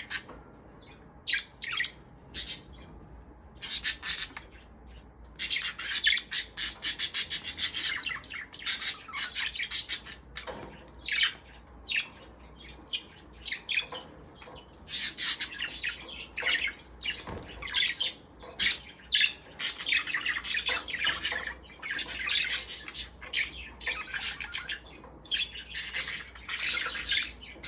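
Pet parrots (budgerigars and a cockatiel) chattering, with a stream of irregular high chirps and squawks broken by a few short lulls.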